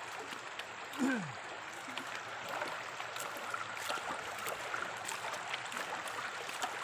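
Shallow river running steadily over gravel, with scattered small clicks of stones on a shovel blade as river gravel is scooped and stirred under the water. A short falling voice sound comes about a second in.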